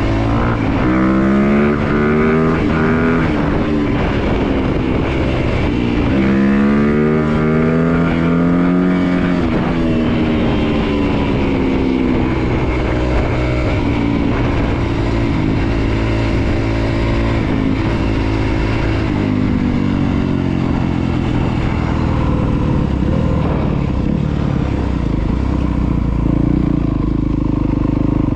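Honda CRF250RX's single-cylinder four-stroke engine under way. Its pitch winds up twice in the first ten seconds, holds a fairly steady cruise through the middle, then drops to a lower, steady note near the end as the bike slows.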